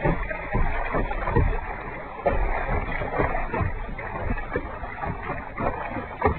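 Kayak paddle strokes: the blades dipping and splashing in the water in quick succession, with knocks of the paddle and hull.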